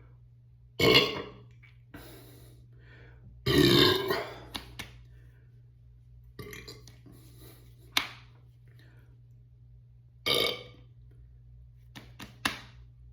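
A person burping after chugging beer: three loud burps, about a second in, about three and a half seconds in (the longest and loudest), and about ten seconds in, with a few fainter ones and several short sharp clicks between them.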